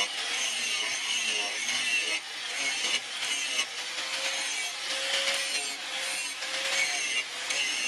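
Angle grinder grinding the edge of a forged steel knife blade: a steady, high grinding hiss over the motor's whine, swelling and easing unevenly as the disc is pressed and worked along the steel.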